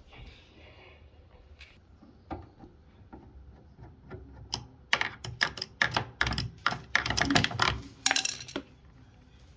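Rapid clicking and clattering of hard objects being handled, sparse at first and then dense for about four seconds before stopping near the end.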